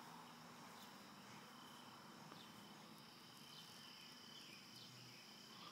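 Near silence, with a faint steady high-pitched insect trill, crickets, and a few short faint chirps over it.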